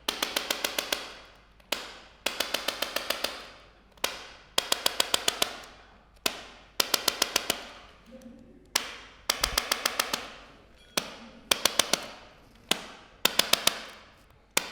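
Repeated groups of rapid sharp taps or clicks. Each group starts with a single knock, then six to eight quick taps follow at about eight a second, and a new group starts every two seconds or so at uneven intervals.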